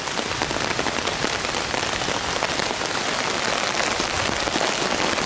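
Heavy rain falling on a poncho strung overhead as a shelter, heard from underneath: a dense, steady patter of drops on the fabric.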